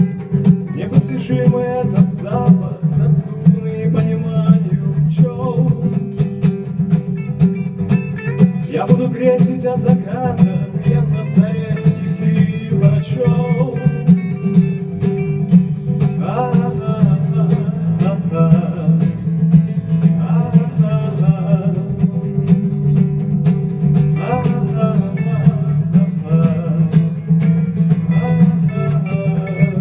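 A band playing a song: strummed guitar keeping a steady beat, with a singer's voice coming in and out in phrases.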